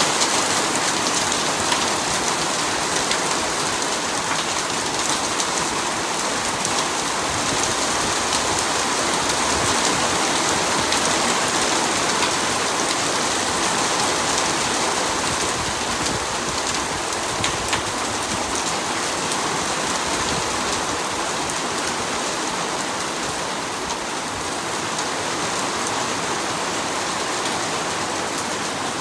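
Hail and heavy rain falling in a dense, steady patter of many small impacts, easing slightly near the end.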